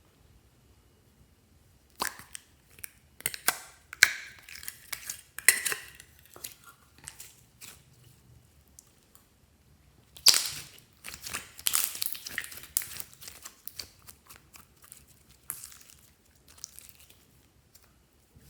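Glossy slime being squished and pulled by hand, giving irregular bursts of sticky crackling and popping clicks, in two main bouts with a softer one near the end.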